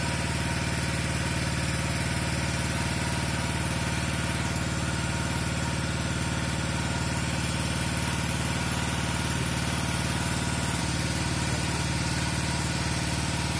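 Small petrol-engine water pump running steadily at one speed, drawing water out of the excavated pool through its hoses.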